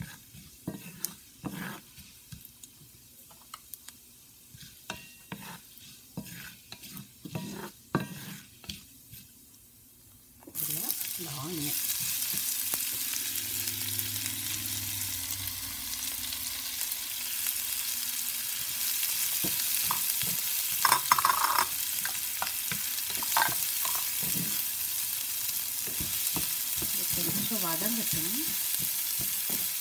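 A wooden spatula tapping and scraping in a cast-iron skillet of melted butter and cumin seeds. About ten seconds in, chopped red onion goes into the hot butter and a loud, steady sizzle starts, running on under the stirring as the onion fries.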